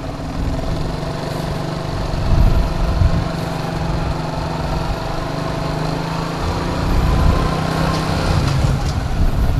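Honda Wave underbone motorcycle's single-cylinder engine running steadily on the move, with wind rumbling on the microphone.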